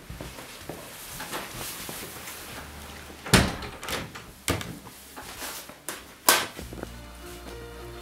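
Wooden panelled interior door being shut, with a few sharp thuds and knocks from the door and its latch, the loudest a little over three seconds in and again about six seconds in. Music plays in the background, with steady notes coming in near the end.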